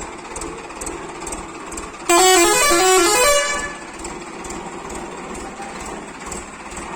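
Aftermarket musical air horn sounding a loud, quick run of stepped notes for about a second, starting about two seconds in. A quieter steady background with faint, evenly spaced ticks surrounds it.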